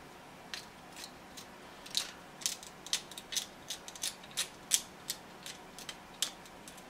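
3D-printed plastic adjustable wrench, its thumb-screw worm turned by hand to slide the jaw, giving a string of irregular clicks, a few each second. The clicking comes from threads that did not print quite right and catch as they turn.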